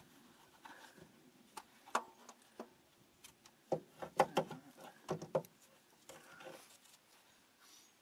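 Scattered sharp metallic clinks and knocks of a hand tool and bolt against the starter and engine while the starter is being fitted from underneath, with a quick cluster of clicks about four to five seconds in.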